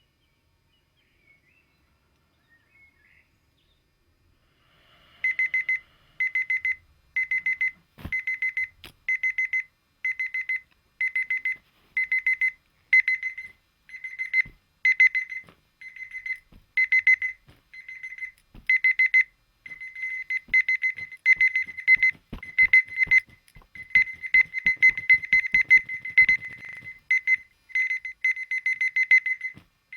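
Dumbbell alarm clock's electronic alarm beeping at a high pitch in rapid bursts of about half a second, roughly one burst a second, the bursts coming quicker and closer together after about twenty seconds, with faint knocks mixed in. It starts about five seconds in and stops just before the end.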